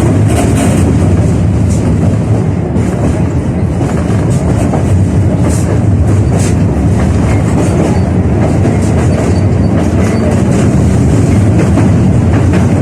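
71-605A (KTM-5A) tram running along the line, heard from inside the car: a loud, steady rumble of wheels on rails and running gear, with a few brief sharp clicks.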